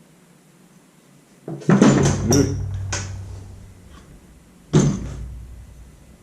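Knocks and clatter of motorcycle fork parts being handled during reassembly: a cluster of knocks about a second and a half in and a single knock near five seconds, each with a low ringing tail.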